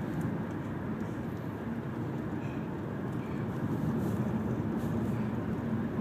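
Steady road and engine noise inside the cabin of a moving car, a low, even rumble.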